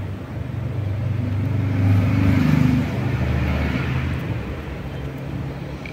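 A motor vehicle passing by, its engine rising to a peak about two to three seconds in and then fading away.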